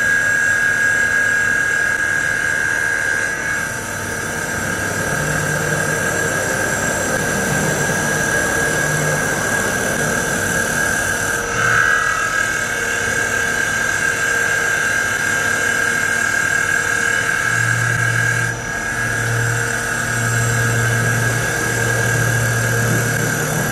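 CNC wood lathe turning the outside of a wooden cup: a steady high-pitched whine over the hiss of the tool shearing wood. The cut briefly eases about three times.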